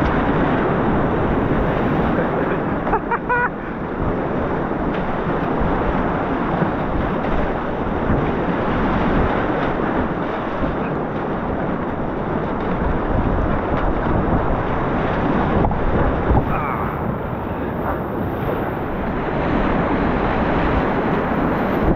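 Whitewater rapids rushing and splashing close around a kayak, with water and wind buffeting the microphone.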